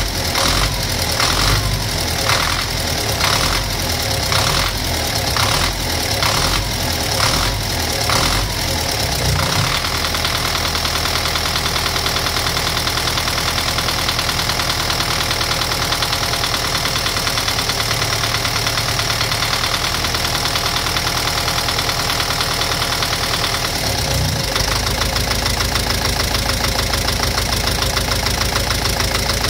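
Engine running with a knock, which is the fault the engine is being recorded for. For about the first nine seconds there is an even, rhythmic pulsing of about one and a half beats a second, then the engine settles into steady running.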